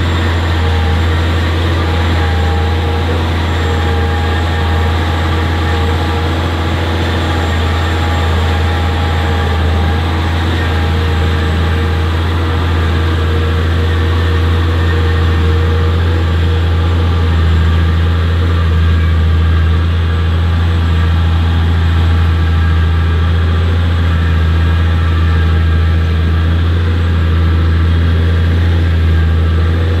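Case IH 9380 QuadTrac's six-cylinder 14-litre Cummins diesel running steadily under load while pulling a plough through the field, a deep, constant engine note.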